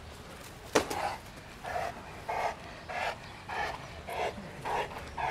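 Large mastiff-type dog panting hard after tug-of-war play, a steady rhythm of about three breaths every two seconds. A sharp click sounds about a second in.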